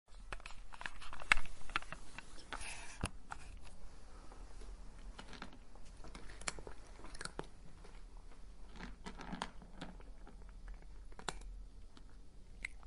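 A cat crunching dry kibble: irregular crisp crunches and chewing clicks, busiest and loudest in the first three seconds.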